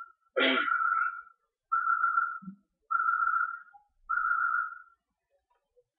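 A run of short whistle-like notes, all at the same steady pitch, about one a second, stopping near the end.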